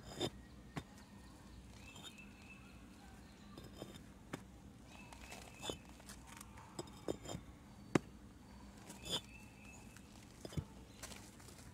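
Concrete pavers being set by hand, knocking and clinking against each other in about ten separate sharp knocks at irregular intervals, the loudest about eight seconds in, over a faint steady hum.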